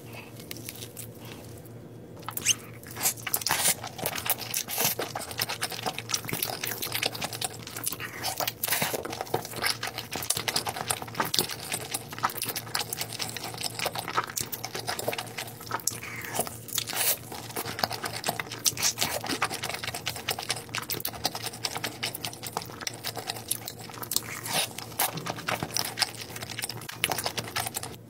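Close-miked biting and chewing of crisp-edged luncheon meat slices dipped in thick cheese sauce: a dense run of crunches, crackles and wet smacks that begins about two seconds in.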